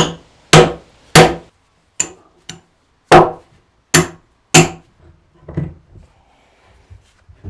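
Hammer blows: about eight loud, sharp strikes in irregular succession, a couple of them lighter, followed by a few fainter knocks. This is the sound of something being hammered into place during installation.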